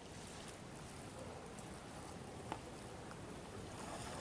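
Steady hiss of gentle lagoon water lapping at the shore, with one sharp click about two and a half seconds in.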